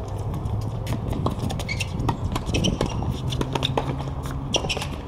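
Tennis rally on a hard court: sharp knocks of racket hits and ball bounces mixed with players' running footsteps and shoe scuffs. A low steady hum comes in about three seconds in.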